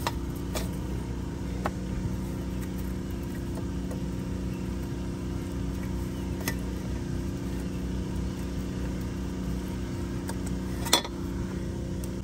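Steady engine-like drone from water-department machinery working on a burst water main, which sounds like a generator running. A few light clicks and one sharper knock near the end come from a rubber hose being worked loose in the engine bay.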